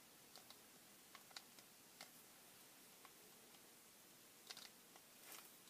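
Faint, irregular light clicks and taps of Allen wrenches and small kit parts being handled on a workbench mat, with a short cluster of clicks near the end.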